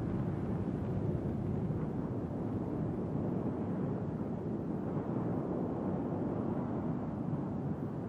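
An oil well fire burning, a steady deep rush of noise with no breaks.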